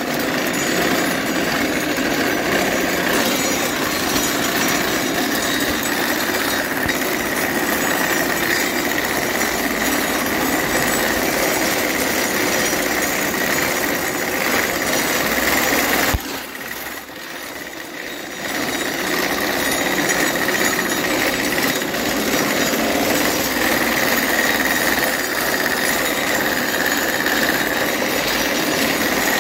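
Horse-drawn sickle-bar mowing machine cutting grass: the cutter bar's knives and drive gearing chatter steadily and rapidly. The chatter drops away sharply for about two seconds a little past halfway, then picks up again.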